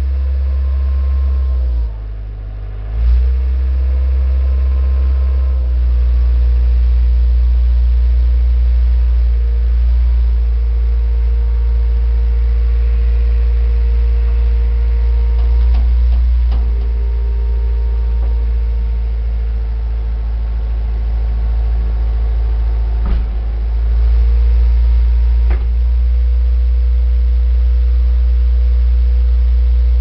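A CAT 236 skid steer's diesel engine running, heard from inside the cab as a deep steady hum. Its note drops briefly about two seconds in and shifts several more times as the loader arms and bucket are worked, with a few sharp clicks.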